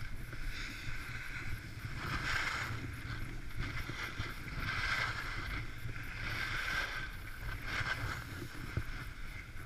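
Skis sliding and scraping over groomed snow during a downhill run, the hiss swelling every couple of seconds, over a steady wind rumble on the camera's microphone.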